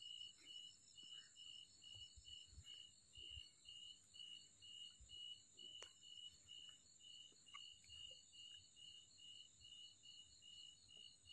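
Faint cricket chirping at night in an even rhythm, about three to four chirps a second, with a steady high-pitched whine behind it.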